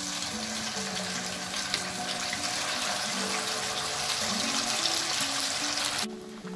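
Spice-marinated chicken pieces deep-frying in hot oil in a wok: a loud, steady sizzle that drops away sharply near the end.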